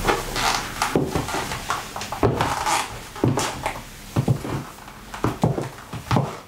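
Silky satin dress fabric rustling and swishing as hands rub over it and the wearer turns, with a few short soft thumps mixed in.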